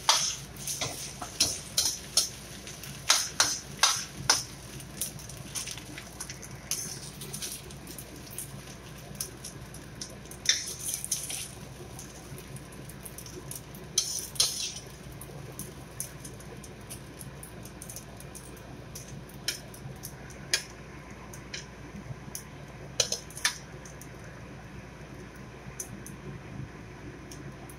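Metal ladle clanking and scraping against a stainless-steel wok as fried rice is stirred and scooped out, with rapid clinks in the first few seconds, then sparser knocks and scrapes. A steady low hum runs underneath.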